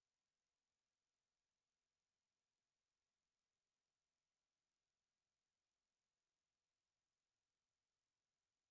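Electronic crow-repellent sound: a faint, very high-pitched hiss near the top of hearing with a quick flicker, almost nothing lower down. It is made from simulated crow alarm calls, sped up about three times and shifted into their overtone range.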